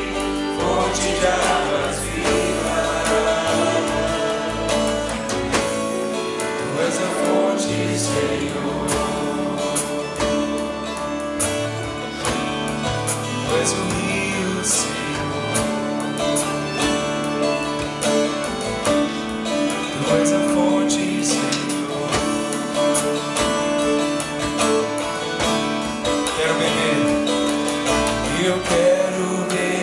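Live church worship band playing a slow worship song, with drums and electric guitar, and voices singing along.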